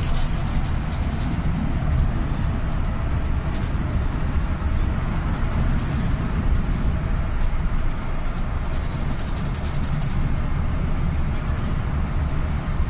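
Steady road and engine noise inside a moving vehicle: a deep low rumble with a hiss over it.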